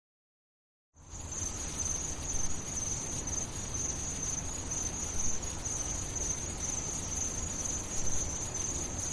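About a second of dead silence, then a steady high-pitched insect chirring over a faint low hiss.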